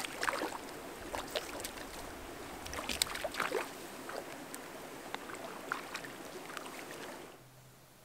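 Water splashing irregularly at the lake's edge as a hooked trout thrashes at the surface while being landed by hand. The splashing stops abruptly near the end.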